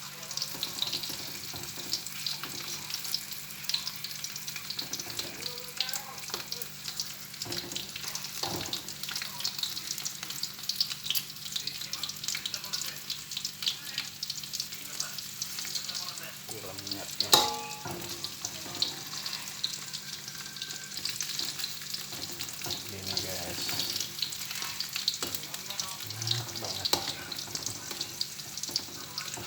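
Pieces of half-ripe jackfruit frying in hot oil, a steady dense crackle and sizzle, with small stirring noises from the utensil in the pan. One sharp knock stands out about two-thirds of the way through.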